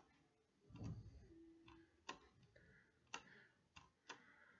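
Faint computer mouse clicks: four or so short single clicks, about half a second to a second apart, in the second half, with a soft low thump about a second in.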